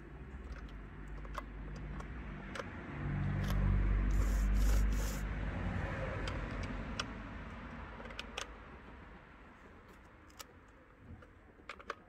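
A motor vehicle passing by: its engine rumble swells to a peak about four seconds in, then fades away over the next several seconds. Light metallic clicks from a chainsaw's bar and chain being handled sound throughout.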